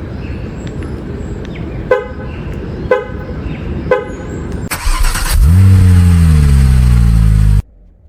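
A car's horn chirps three times, about a second apart, then its engine cranks and starts, the revs flaring and settling toward idle before the sound cuts off suddenly.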